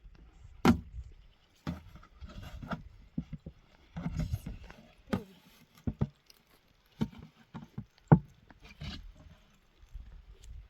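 A series of irregular knocks and thumps with low rumbling between them. The two loudest come about a second in and near the end.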